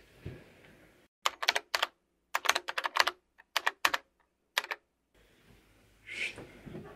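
Keyboard typing sound effect: quick, sharp key clicks in irregular clusters for about four seconds over dead silence, with faint room noise and fabric rustling before and after it.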